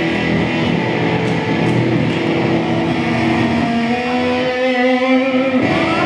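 Electric guitar played alone through its amplifier for a sound-check level test: strummed chords, then held notes that stop just before the end.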